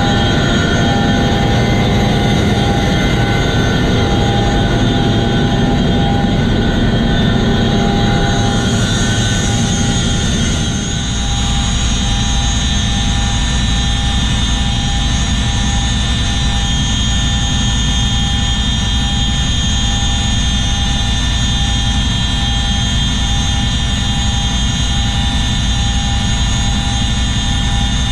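Cabin noise inside a CH-47 Chinook helicopter: a steady turbine whine made of several high tones over a deep, continuous rotor and drivetrain drone. About eleven seconds in the sound changes abruptly, the deep drone growing stronger and the middle range thinner.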